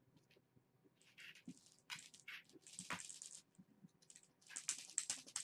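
Kittens scratching and scrabbling as they play, making irregular bursts of scratchy rustling and small clicks from claws and teeth on a cardboard toy.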